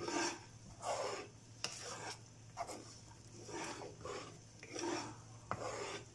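Wooden spatula scraping through thick semolina halwa paste in a nonstick kadai, in repeated strokes a little more than one a second. The stirring is continuous so the paste does not catch and burn on the bottom while the milk cooks off.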